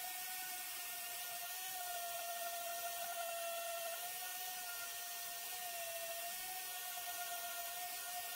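Random orbital sander running steadily, sanding paint off the face of a routed wooden board. It gives a steady whine that wavers slightly in pitch as the sander is pushed along, over a hiss.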